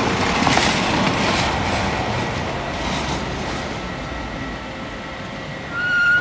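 Ex-Soviet tram car running on street rails, a steady rolling noise that slowly fades as it moves away. A brief high steady tone sounds near the end.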